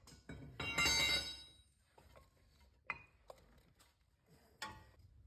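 Metal tools clinking and scraping against steel parts under a car's front suspension: a loud ringing metallic rattle about a second in, then a few sharp clinks.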